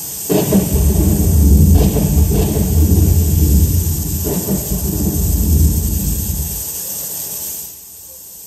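A loud, deep rumble with sharper cracks about two and four seconds in: a thunder-like sound effect that fades out near the end.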